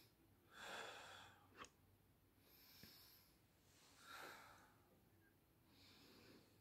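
Faint, slow, deep breathing: a patient breathing fully in and out for lung auscultation, in several soft breaths. A light click comes about one and a half seconds in.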